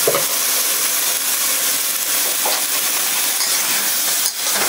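Pork spareribs with onion and garlic sizzling steadily in a hot wok as freshly added light soy sauce cooks off in steam, stirred with a metal wok spatula.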